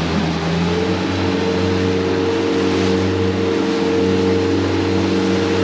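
Boat outboard motor running under way over a steady rushing noise; the engine note rises a little about a second in, then holds steady.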